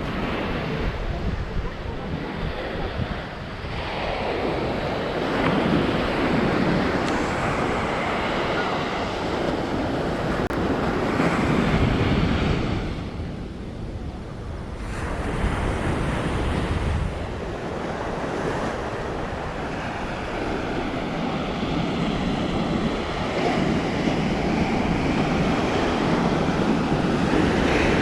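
Ocean surf breaking and washing up the shore, swelling and easing every few seconds, with wind buffeting the microphone.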